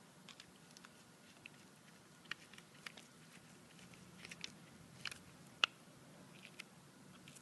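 Faint, scattered clicks and taps of a socket nut driver and hands working the small air knife fitting into the plastic fluid manifold of a Graco Fusion AP spray gun, with one sharper click about five and a half seconds in.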